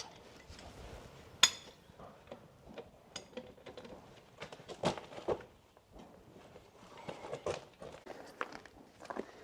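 Hand tools clinking and knocking on the rusty metal of an old tractor's steering: scattered irregular metallic taps, the sharpest about one and a half seconds in with a brief ring.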